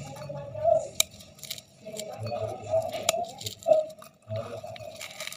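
Brittle pink flakes crunching and crackling as a hand squeezes and crumbles them over a glass bowl, with a few sharp clicks as fragments land on the glass. A steady hum runs underneath.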